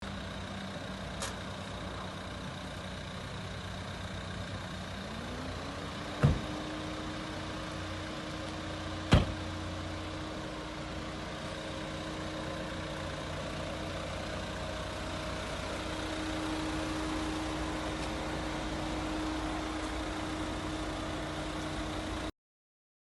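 A motor running steadily, its pitch rising over about a second some five seconds in and then holding, with two sharp knocks about six and nine seconds in. The sound cuts off abruptly near the end.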